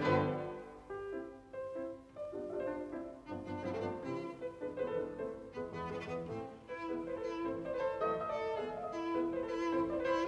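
Instrumental background music led by bowed strings, with held notes that change throughout.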